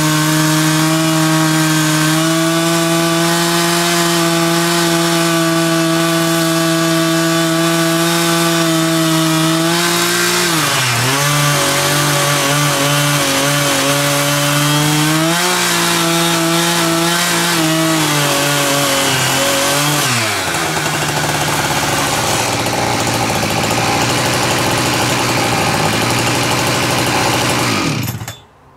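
Husqvarna 365 two-stroke chainsaw at full throttle, ripping an oak log lengthwise into boards on a Logosol Timberjig. The engine note sags as the chain loads up in the cut, about 10 seconds in and again about 20 seconds in, then falls away sharply near the end.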